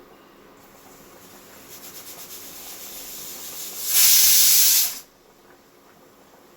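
Pressure cooker whistle: steam hiss builds, fluttering as the weight starts to lift, then breaks into a loud steam blast for about a second that cuts off abruptly as the weight drops back.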